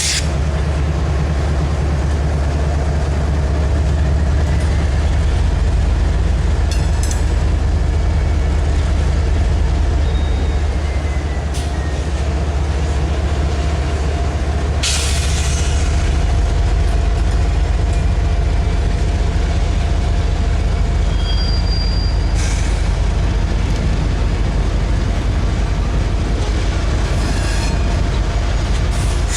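A large vehicle running steadily with a heavy low rumble, with a few brief hissing bursts, the clearest about halfway through.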